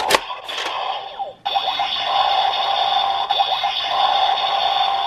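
Electronic sound effects from the DX Whale Change Gun toy's small speaker. After two short sharp bursts, about one and a half seconds in a steady, looping charging or waiting tune starts. It signals that the pump-action attack is charged and the toy is waiting for the trigger to fire.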